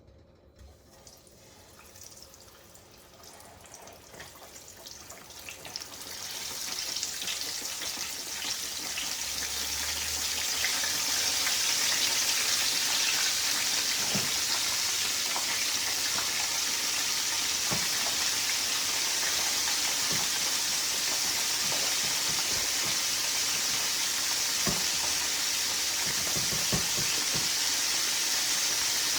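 Flour-dredged fish pieces frying in hot oil, a sizzle that builds over the first ten seconds or so and then holds steady, with scattered pops and crackles.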